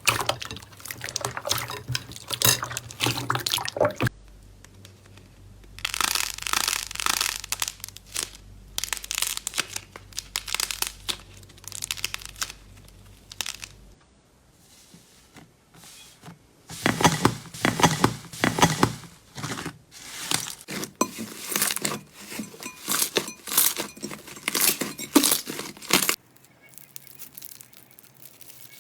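Slime being squeezed, pressed and stretched by hand, giving dense crackling and popping. It comes in three separate stretches with quieter gaps between them.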